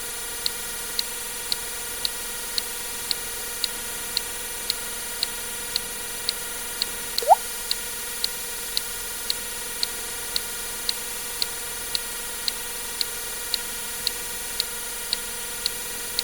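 Water drip sound effect: one short drop plink rising in pitch, about seven seconds in. Behind it a short tick repeats about twice a second over a steady hiss.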